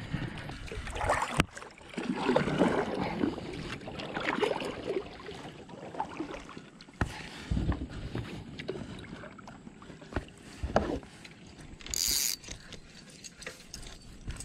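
Scattered knocks, clicks and rubbing from a plastic sit-on fishing kayak and the fishing gear being handled on board, with a brief hiss about twelve seconds in.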